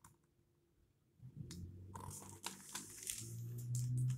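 Near silence for about a second, then the faint rustle and small clicks of a hardcover picture book being handled and its pages shifted, over a low steady hum that grows near the end.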